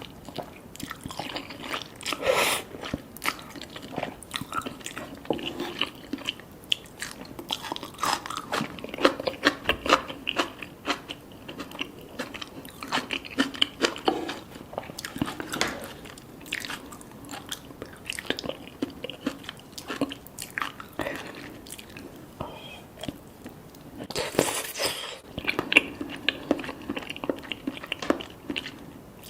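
Close-up eating sounds of cheesy spicy Korean noodles and soft-boiled eggs: steady chewing and biting with many small wet clicks, and two louder noisy stretches, one about two seconds in and one near the end.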